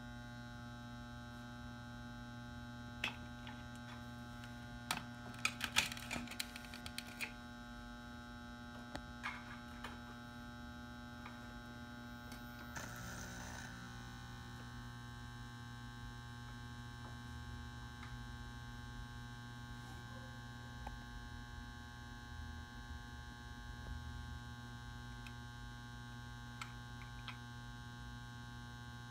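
Magnetic metal halide ballast humming steadily as it powers a 400 W pulse-start metal halide lamp that is lighting and warming up. Scattered clicks and crackles fall in the first seven seconds, and a brief hiss comes about thirteen seconds in, after which the hum gains a higher buzzing edge.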